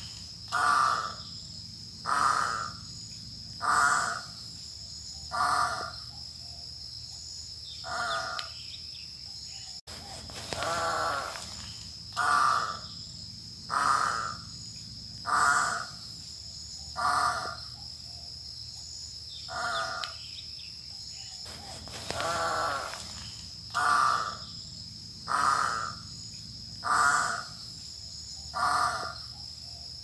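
Great Egret calling: a series of harsh, hoarse croaks, one every one and a half to two and a half seconds, over a steady high-pitched background drone.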